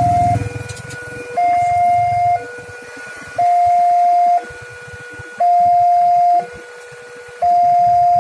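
Railway level crossing warning alarm sounding its electronic two-tone signal, a higher tone and a lower tone alternating about once a second each: the warning that a train is approaching and the barrier is closed. A vehicle engine's low rumble fades out in the first second or two.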